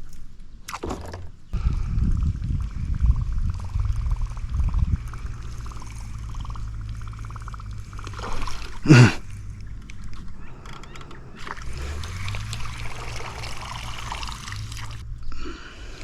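Water splashing and trickling, with low handling rumble early on and a single sharp falling whoosh about nine seconds in.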